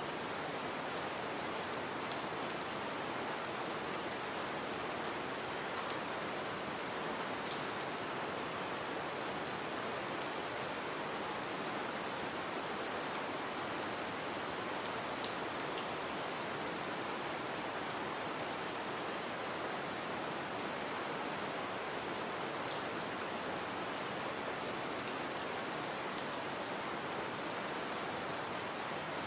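Gentle rain falling steadily: an even hiss with a few single drops ticking here and there.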